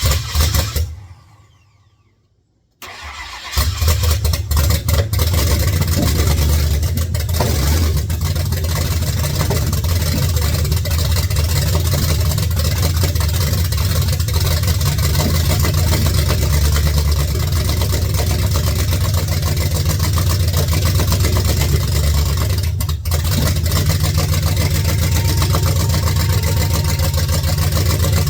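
Ford F-150 SVT Lightning's supercharged 5.4-litre V8 on its first start-up. A short burst at the start dies away, then the engine catches about three seconds in and runs steadily, with a brief dip about twenty-three seconds in.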